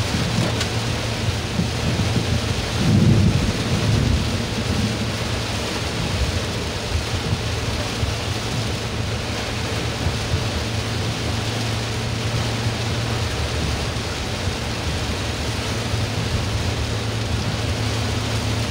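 Heavy rain drumming on a car's roof and windscreen while driving, over a steady low drone from the engine and tyres. A louder low rumble of thunder swells about three seconds in.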